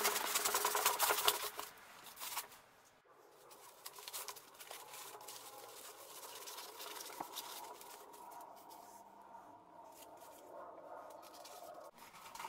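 Expanded-polystyrene foam creaking and crackling as hands press and break a round plug out of a foam block, in quiet, irregular scratchy crackles with short pauses.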